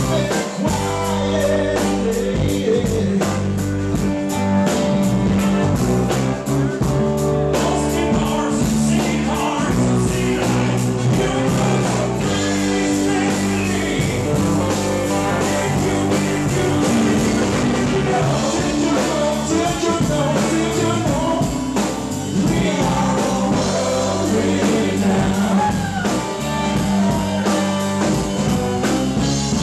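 Live rock band playing a song: guitars over a steady beat, with a lead voice singing.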